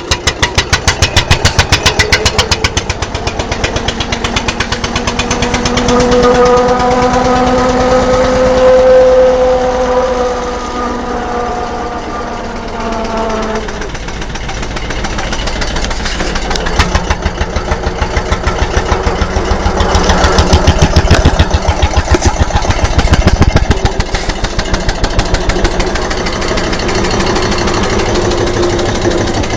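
Diesel tractor engine running under load during corn silage work, its firing beat plain at the start and again later. In the middle a whining tone rises gently and then falls away.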